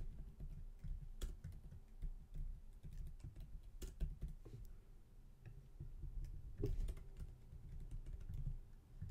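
Typing on a computer keyboard: irregular keystrokes, some sharper taps standing out among softer ones.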